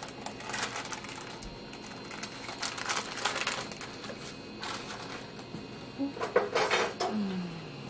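Annatto seeds poured from a bag into a pan of hot oil: irregular crackling and pattering in several bursts.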